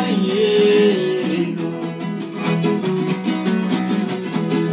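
Two acoustic guitars, one of them a nylon-string classical guitar, strummed and picked in a steady, rhythmic country-style accompaniment. A man's voice ends a sung line on a long held note about a second in, and the guitars carry on alone.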